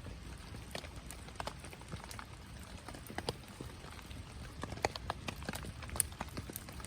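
Wood fire crackling: irregular sharp pops and snaps from burning firewood over a low, steady rumble of flames, with a few louder pops near the end.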